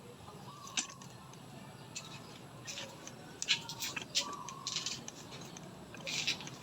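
Small birds chirping in short, sharp, irregular high-pitched notes, about a dozen scattered calls over a faint steady background.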